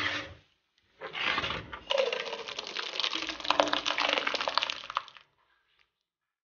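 Steel ladle stirring a pot of thick cracked-corn porridge, with rapid clinks and scraping of the ladle against the pot. The sound stops abruptly about five seconds in.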